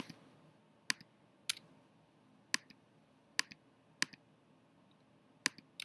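Computer mouse clicking, about seven single sharp clicks at uneven intervals, two of them close together near the end.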